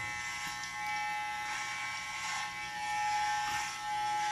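Corded electric hair clippers buzzing steadily as they cut a boy's short hair, heard off an old videotape through a TV speaker.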